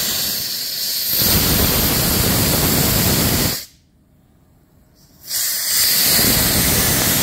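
Live steam blasting out of a fire-tube boiler's half-inch engine-outlet ball valve as it is opened: a loud hiss that cuts off suddenly when the valve is shut a little over three seconds in. A second blast starts about five seconds in.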